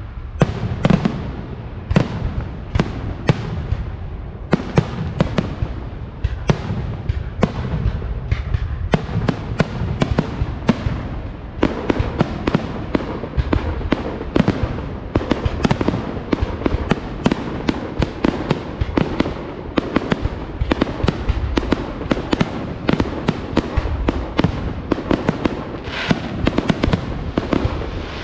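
Fireworks going off in rapid succession: a dense, unbroken run of sharp bangs and crackles, several a second, over a steady low rumble.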